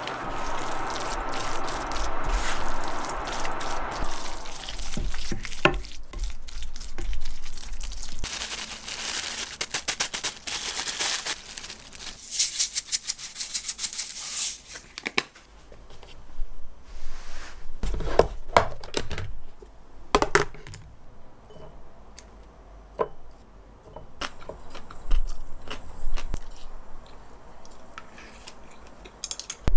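Fried rice sizzling in the pan for about four seconds. Then a long stretch of dense crackling and crinkling as dried seaweed is crumbled over it. Toward the end there are scattered clicks of a spoon and chopsticks against the pan.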